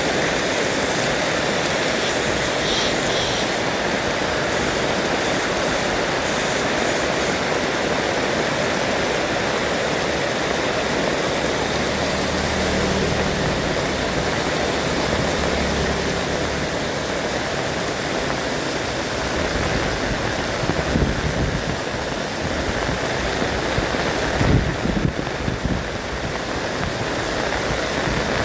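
Heavy rain pouring steadily. A faint low hum comes in partway through, and a few louder low rumbles follow near the end.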